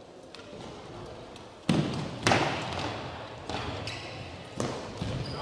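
Cycle-ball play: sharp knocks and thuds of the ball and bicycles striking each other and the floor, echoing through the sports hall. The loudest comes about a second and a half in, another half a second later, then a few softer ones.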